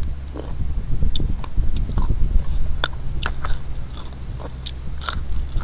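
Close-up eating sounds: chewing and biting with irregular sharp, crunchy clicks from the mouth, over a steady low hum.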